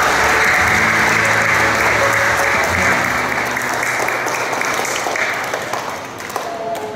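Congregation clapping, with instrumental music playing underneath; the applause thins out and grows quieter near the end.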